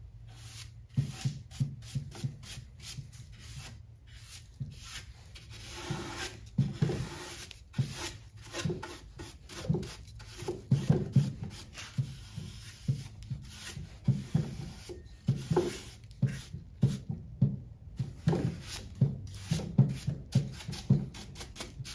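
Dry paintbrush bristles swept over a wooden end table in many quick, uneven strokes, rubbing the wood to dust it off before washing.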